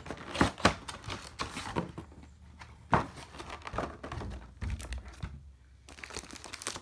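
A cardboard Pokémon card box being opened by hand: packaging crinkling and cardboard being handled, with irregular crackles and a few sharper knocks.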